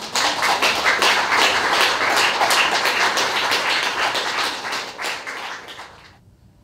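Audience applauding, a dense patter of many hands that tapers off and stops about six seconds in.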